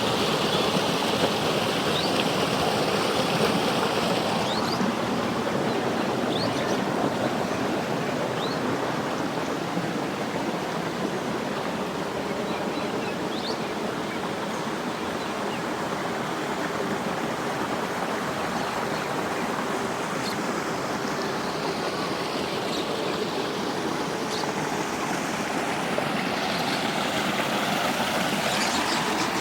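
Creek water rushing steadily over rocks, a constant full rush, with a few faint short high chirps scattered through it.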